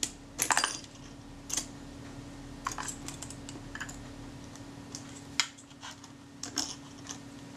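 Irregular small metallic clicks and taps as the shutter retaining ring of a Kodak Retina I camera is fitted and worked into place, over a faint steady hum.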